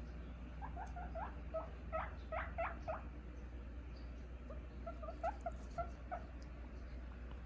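Guinea pig squeaking: two runs of short, rising squeaks, the first about half a second in and the second about four and a half seconds in.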